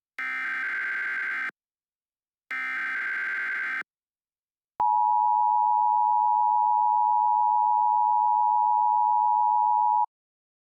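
Emergency Alert System tones. Two harsh, buzzy bursts of the SAME digital header, each about 1.3 s long with a gap between, are followed a second later by the two-tone EAS attention signal (853 and 960 Hz together). The attention signal sounds steadily for about five seconds and cuts off sharply. Together they mark the start of a new emergency alert.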